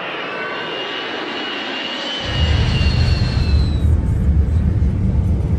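Twin-engine jet airliner passing low overhead. High engine whines drift slightly down in pitch and fade out, and a deep rumble comes in about two seconds in.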